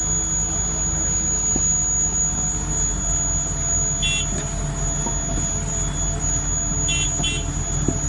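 A heavy machine's engine running with a steady low drone. Short high electronic warning beeps sound once about four seconds in and twice near the end.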